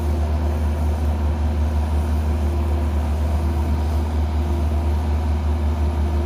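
Compact excavator's diesel engine running steadily, a continuous low drone with a held hum above it.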